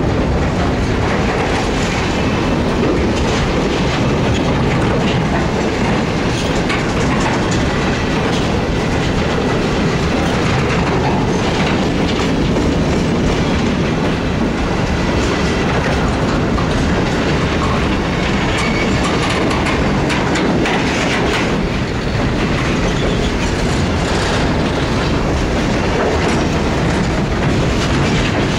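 Freight train of flat wagons loaded with shipping containers rolling past: a steady rumble of steel wheels on rail with repeated clicking as the wheels cross rail joints.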